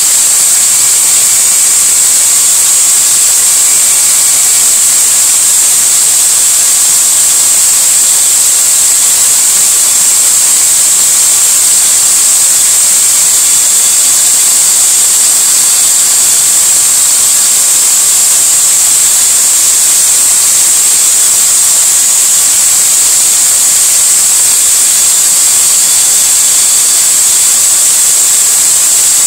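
Corded electric drill spinning an engine exhaust valve while 80-grit sandpaper is held against it to sand off carbon: a loud, steady hiss with a faint whine from the drill motor, unchanged throughout.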